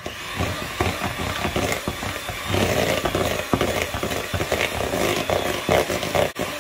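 Electric hand mixer running, its beaters whipping a thick cream cheese mixture in a bowl, with many small knocks as the beaters hit the bowl. It starts abruptly and breaks off briefly near the end.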